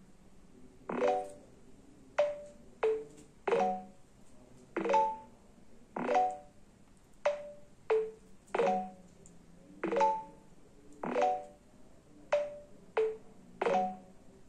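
A string of about fourteen short, pitched, clicky notes at uneven spacing, each a sharp click with a brief tone cluster, like beeps or wood-block notes.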